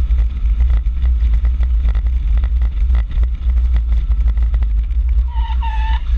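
Motor vehicle on the road, heard through an on-board camera microphone: a loud, steady low rumble of wind and road noise with small knocks. Near the end a brief high steady tone comes in.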